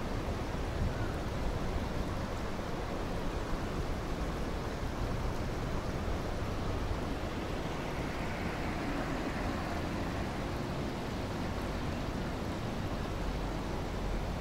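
Steady rushing outdoor noise with a low rumble underneath, even throughout with no distinct events.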